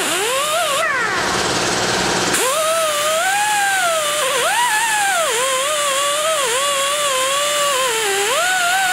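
Pneumatic die grinder with a wire brush whining as it cleans out a valve-seat pocket in a cast iron cylinder head to prepare it for welding. The pitch rises and falls as the brush is pressed into the metal. About a second in, the pitch drops away briefly before it comes back up to speed.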